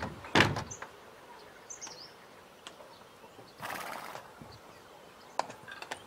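A wooden door knocks loudly just after the start. About three and a half seconds in, a horse gives a short noisy snort, followed near the end by a few scattered hoof clops on hard ground.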